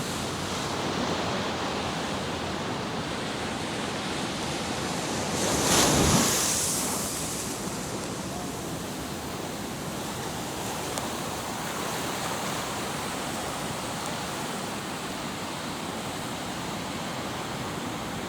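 Steady rushing wash of surf, with one louder swell that builds and fades about six seconds in.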